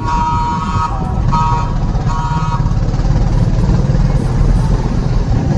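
TVS Raider 125's single-cylinder engine and exhaust running under way with wind rush, while a vehicle horn sounds three short times in the first few seconds.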